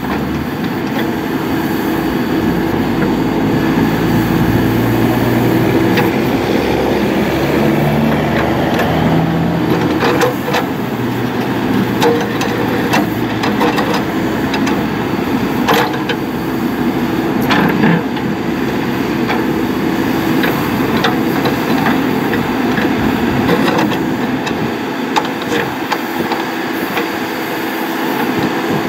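John Deere 310SK backhoe loader's diesel engine running, its pitch shifting now and then as if under changing load, with scattered sharp knocks and clanks.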